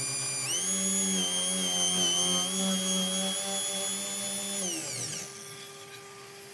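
Electric power tool motor with a drill-like whine. It speeds up about half a second in, runs steady, then winds down and fades after about five seconds.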